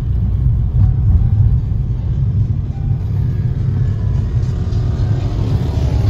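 Car driving, a steady low rumble of engine and road noise.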